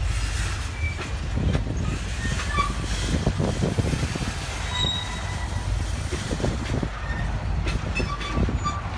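Freight train rolling past: a steady rumble of steel wheels on the rails, with knocks and several brief high-pitched wheel squeals.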